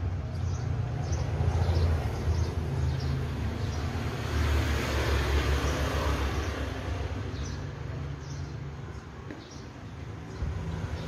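Outdoor street ambience: an uneven low rumble of wind on the microphone, and a vehicle passing by, swelling and fading about four to seven seconds in.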